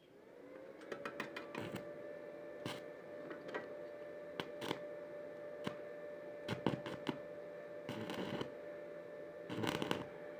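A small machine's steady whine that rises in pitch as it starts up and then holds, with scattered sharp clicks and short bursts of crackling.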